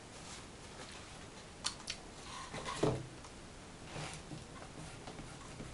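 Faint handling noises: a couple of light clicks, then a brief louder sound with a falling pitch about three seconds in, and a small rustle a second later.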